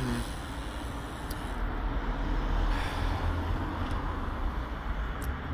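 Riding noise on a moving gravel bike: a steady low rumble of wind and road noise with an even hiss, swelling slightly around the middle.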